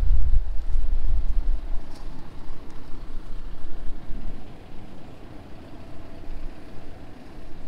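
Outdoor wind rumbling on the camera microphone, heavy for about the first two seconds and then easing to a steady low rumble.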